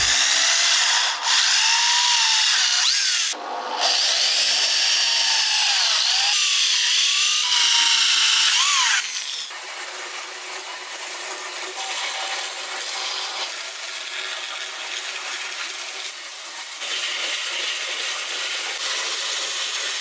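A power saw cutting a curve through a wooden board, its whine bending up and down in pitch, with a brief break about three seconds in. After about nine seconds a quieter, steadier band saw cuts straight through a board.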